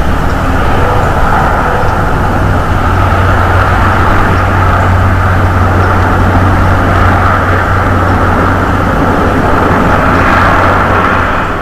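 Steady, loud outdoor background noise with a constant low hum, picked up by the eagle nest camera's microphone. It starts to fade near the end.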